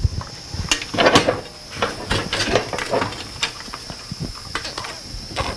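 Irregular light metallic clicks, rattles and knocks as a bicycle chain is handled and fitted onto the rear sprocket of a Schwinn Stingray, over a steady faint high-pitched tone in the background.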